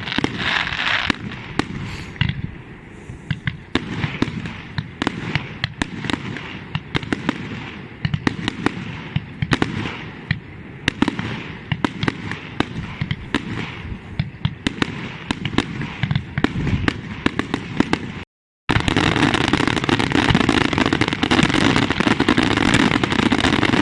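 Fireworks display: a rapid, dense run of bangs and crackles. The sound drops out briefly about three quarters of the way through, then comes back as a denser, steady noise.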